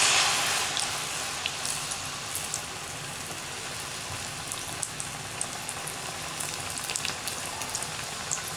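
Maida-batter-coated suyyam ball deep-frying in hot oil in a metal pan: the sizzle is loudest as it goes in and settles over the first couple of seconds into a steady bubbling sizzle with scattered crackles.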